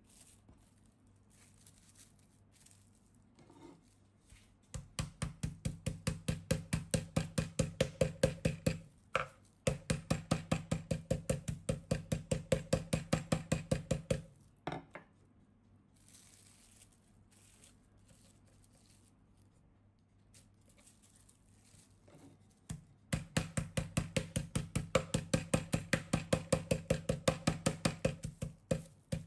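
Wooden rolling pin pounding a slice of beef wrapped in plastic cling film on a bamboo cutting board, rapid knocks about five a second. There are two long runs of pounding with a pause between them, the meat being flattened.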